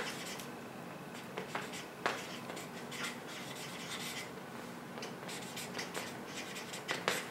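Pen writing on paper in short, scratchy strokes with pauses, and a couple of soft knocks on the table.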